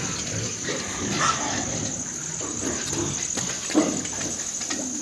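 Pigs grunting in short irregular calls, with one louder call near the end, over a steady high-pitched hiss.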